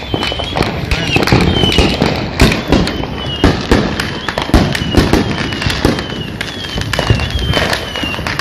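Fireworks going off: a rapid, irregular string of pops and bangs, with a short high whistle recurring about twice a second, typical of a whistling 'llorona' rocket firework.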